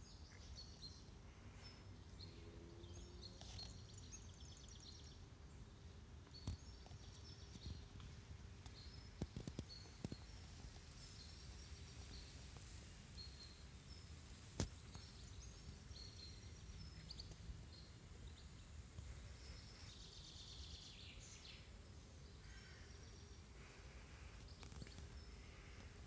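Faint garden ambience: scattered birdsong over a low steady rumble, with a few sharp clicks.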